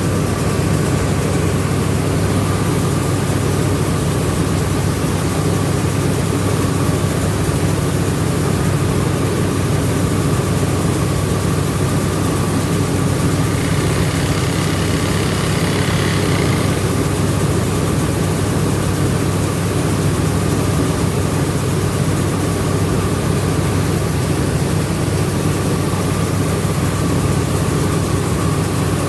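Rice milling machine running steadily: a constant low drone with a faint steady higher whine over it.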